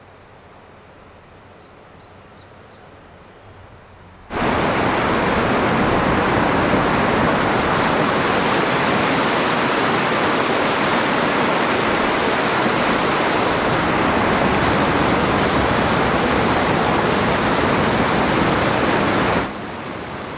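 Small river rapids: water rushing and tumbling over rocks close by. It is a loud, steady rush that starts suddenly about four seconds in after quiet outdoor ambience, and it drops to a softer steady hiss near the end.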